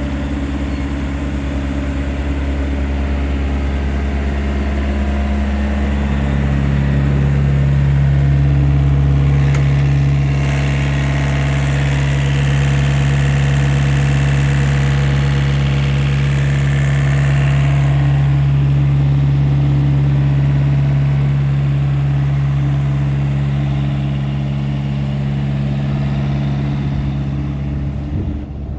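Engine of a refrigerated truck running steadily at idle with a deep hum. About six seconds in, a stronger steady tone joins it, and a hiss rises from about ten seconds to eighteen seconds before easing.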